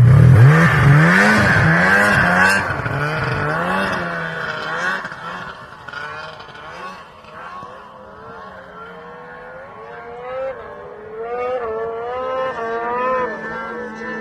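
Snowmobile engine revving hard as it takes off and climbs the hill, its pitch rising and falling with the throttle. It is loudest at the start, fades as the machine moves away, then grows a little louder again near the end.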